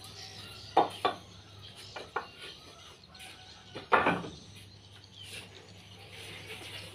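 A handful of sharp knocks and thuds as dried garden waste is handled and loaded into a wheelbarrow: two close together just under a second in, two more about two seconds in, and the loudest about four seconds in. A low steady hum sits underneath.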